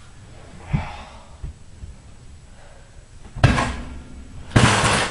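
A bicycle being shoved off a bed: a light thump, then two loud crashes and a clatter as it hits the floor, the second one the loudest.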